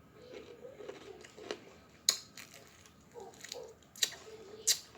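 Close-up eating sounds from chewing sauced chicken wings: a few sharp wet clicks and smacks, the loudest two near the end, over a faint low murmur.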